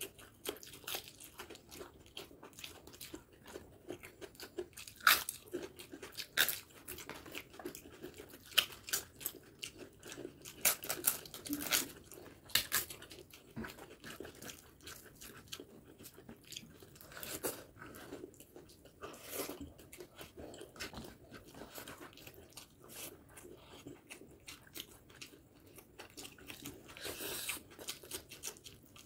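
A person eating close to the microphone: irregular chewing with sharp, crisp crunches, a few of them louder bites.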